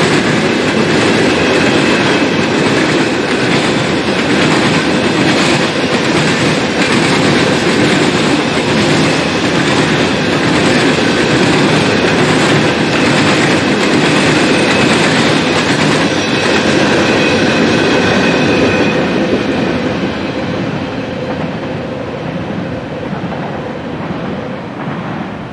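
CSX freight train of coal hopper cars rolling past, steel wheels running over the rails. The sound fades from about twenty seconds in as the end of the train goes by.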